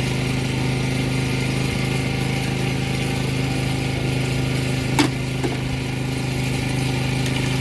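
Steady hum of a machine running nearby, like an idling engine or motor. A sharp clink comes about five seconds in, with a lighter one just after.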